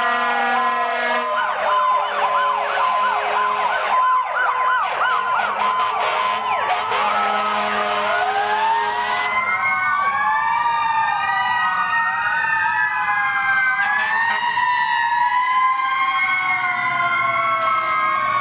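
Several fire truck sirens sounding at once: a fast yelp for the first several seconds, then slow wails rising and falling over one another as the trucks pass.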